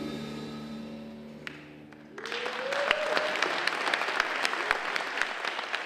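A jazz band's final chord on electric bass, drums and cymbals rings and fades away; about two seconds in, the audience breaks into applause, with one rising cheer over the clapping.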